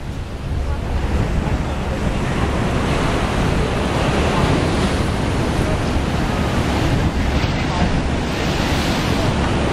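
Ocean surf washing over rocks, a steady rushing noise, with wind buffeting the microphone as a low rumble.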